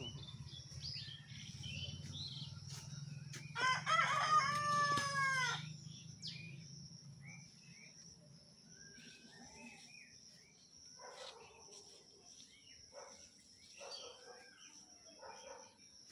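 A rooster crows once, a long call of about two seconds starting about three and a half seconds in, with small birds chirping around it. Later come a few soft rustles of dry bamboo leaves underfoot.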